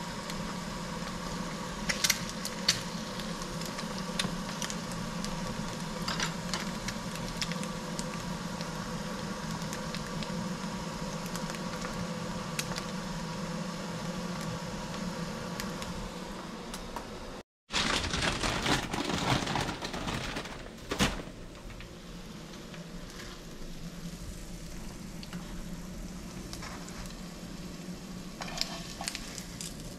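Stovetop cooking: a steady hum and hiss with a few sharp clicks of utensils. A little past halfway the sound cuts out for a moment, then comes back as a louder rushing hiss for a few seconds before settling to a quieter steady hiss.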